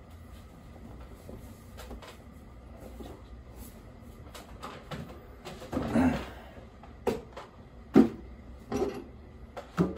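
Kitchen handling sounds of containers and utensils being moved and set down: scattered light knocks and clatters, a longer clatter about six seconds in and the sharpest knock about eight seconds in.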